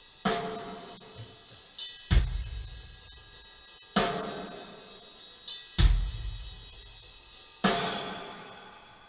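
Recorded rock music played through Rogers LS7t speakers with a subwoofer: a drum-kit passage of heavy kick-and-cymbal crashes about every two seconds, with hi-hat ticks between them. The last crash is left to ring out near the end.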